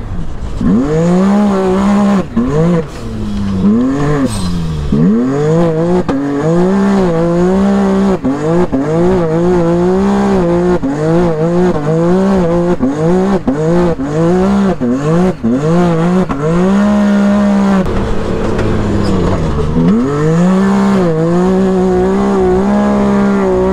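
Can-Am Maverick X3's turbocharged three-cylinder engine revving up and dropping again and again as the UTV is driven hard around a dirt track and slid into turns with the handbrake. Near the end the revs fall away for a couple of seconds before climbing again.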